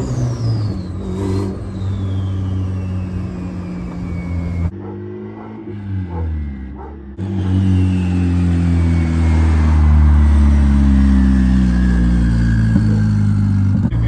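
Turbocharged LS-VTEC Honda Civic engine running under light throttle as the car drives along, heard first from inside the cabin and then from the street as it comes closer. A high whine falls slowly in pitch over the engine note.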